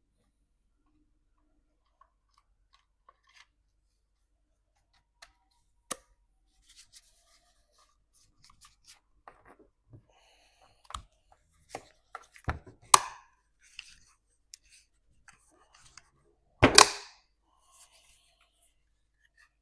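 Scattered clicks, taps and rustles of hands working on dishwasher parts, with a few sharper knocks about six seconds in, around twelve to thirteen seconds in, and a louder double knock about seventeen seconds in.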